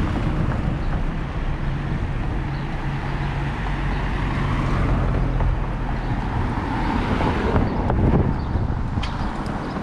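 Road traffic: car engines and tyres as vehicles drive past. A louder swell about eight seconds in marks one vehicle passing close.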